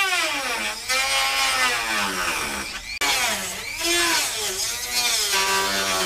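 Dremel rotary tool with a cutting wheel cutting into the metal section of the hood latch assembly. It gives a high whine that repeatedly falls and rises in pitch, breaking off abruptly twice.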